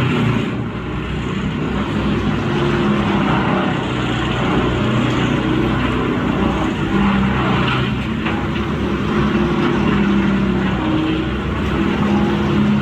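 Vermeer TG5000 tub grinder running under load and grinding logs: a steady, loud diesel engine note that rises and falls slightly, over the dense noise of wood being crushed and shredded.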